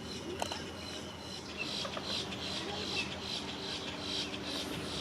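Steady outdoor wetland ambience, with faint high chirps and pulsing calls over a low background hum and distant voices.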